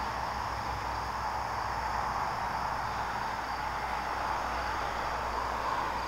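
Steady outdoor background of insects calling, with an even hiss underneath and no sudden sounds.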